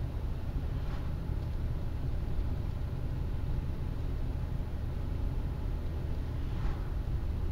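Steady low rumble of a car's engine and tyres at road speed, heard from inside the cabin through a windscreen dashcam. Two faint brief swishes of oncoming cars passing, about a second in and again near the end.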